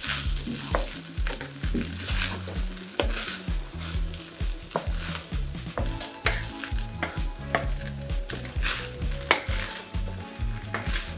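Wooden spatula stirring and tossing beef fried rice with vegetables in a hot nonstick frying pan: the rice sizzles and rustles, with occasional sharp clicks of the spatula against the pan.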